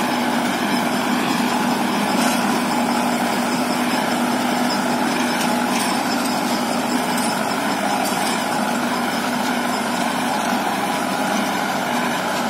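Tractor diesel engine running steadily under load as it pulls a cotton weeder through the soil between cotton rows, a constant, even drone.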